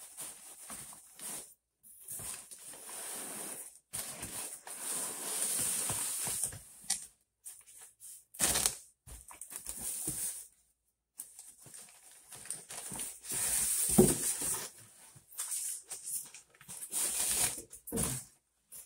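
Foam packing blocks scraping against a cardboard box while crumpled packing paper rustles as the packing is pulled out. A few thumps come in between, the loudest about two-thirds of the way through.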